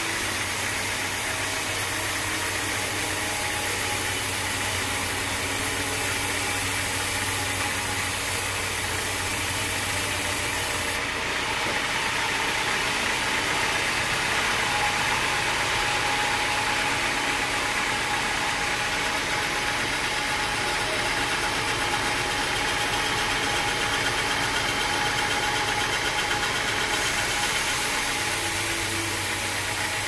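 Band sawmill running steadily as its blade cuts lengthwise through a teak log: a continuous machine drone mixed with the hiss of the blade in the wood.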